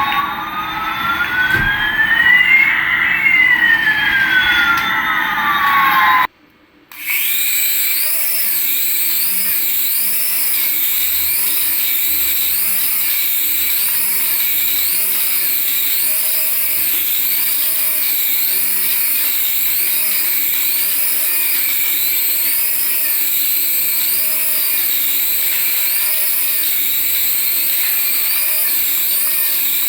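Electronic siren-like sound effects from a battery-powered light-up toy: two synthetic tones sliding up and down past each other, cutting out briefly about six seconds in, then a steady warbling electronic tone that repeats about once a second.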